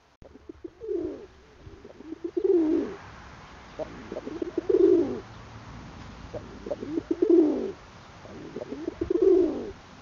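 Feral pigeon cooing: five low coos about two seconds apart, each opening with a short stutter and swelling into a drawn-out note.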